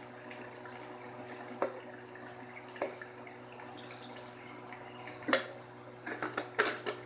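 Thick beef karahi curry simmering and faintly crackling in a steel karahi over a steady hum, with a few sharp clicks of a spoon knocking against the pan, the loudest about five seconds in and a quick run of them near the end.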